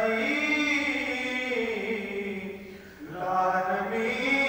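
A single voice chanting in long, held, melodic phrases, with a short break between phrases about three seconds in.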